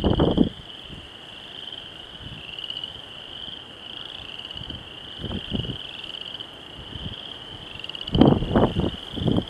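A chorus of frogs calling in a steady, pulsing high trill. Short bursts of low rumbling noise, the loudest sounds, cut in at the start and again in a cluster near the end.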